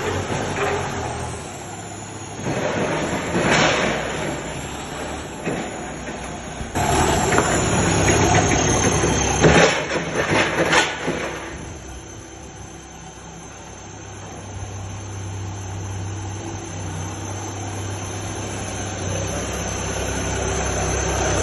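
Truck engine running with a thin, high squeal that slides down in pitch, and loud clattering and knocks for the first half. About twelve seconds in it quietens, then settles into a steady low hum.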